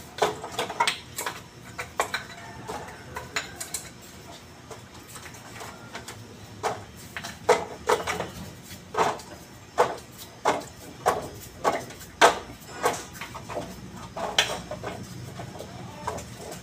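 Metal parts of a forklift starter motor clinking and knocking together as they are handled, in a string of irregular sharp clinks.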